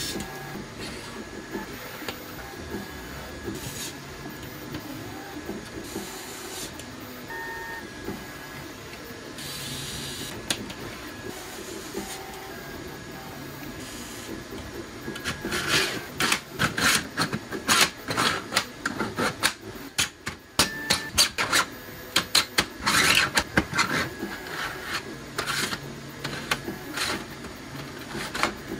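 Cordless screwdriver driving screws in a few short runs over the steady running of a 3D printer. From about halfway comes a rapid clatter of plastic clicks and knocks as the 3D-printed spool trays are handled and snapped onto the wall rails.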